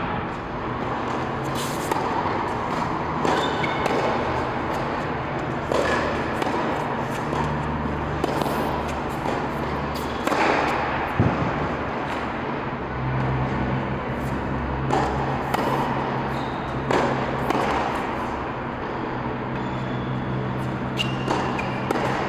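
Tennis balls being struck by rackets and bouncing on an indoor hard court: scattered sharp thuds a second or more apart, over a steady low hum in the large hall.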